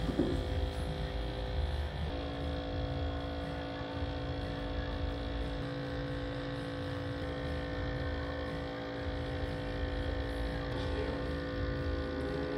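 An electric machine running with a steady hum; a second, lower tone switches on about two seconds in and holds steady.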